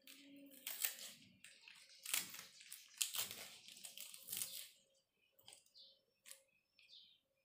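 Kitchen knife cutting through crisp green vegetable stalks on a wooden cutting board: a quick run of crunchy cuts that stops about two-thirds of the way in.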